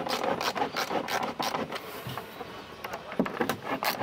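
Long sun visor screws being driven by hand with a screwdriver through a plastic roof console: short, irregular scraping and creaking clicks as the screws turn and bite.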